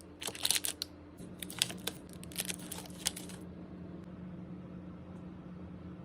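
Crinkling and crackling of handled packaging in quick irregular bursts for about three and a half seconds, over a steady low hum.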